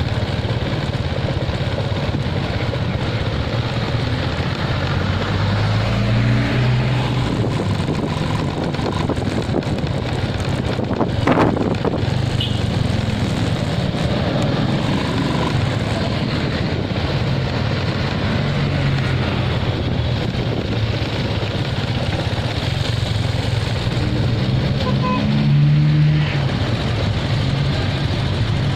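Riding a motorcycle through city traffic: steady engine and road noise, the engine note rising twice as it speeds up, about six seconds in and again near the end, with a single sharp knock about eleven seconds in.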